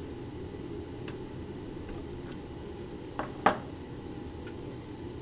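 Small metal clicks of a hand driver bit working screws into the regulator and diode assembly inside a Delco alternator's aluminium end housing, ending in two sharp clinks about three and a half seconds in, the second the loudest, over a steady low hum.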